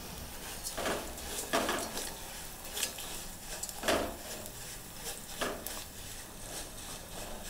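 A spatula stirring vermicelli and whole spices as they roast in a steel saucepan: a handful of irregular scrapes and knocks against the pan over a faint sizzle.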